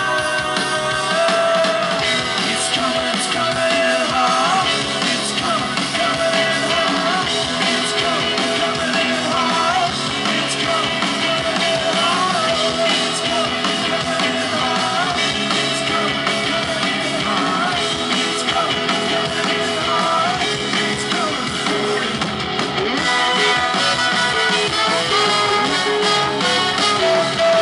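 Live indie rock band playing, with electric guitars, drums and a singing voice, and a trumpet among the instruments.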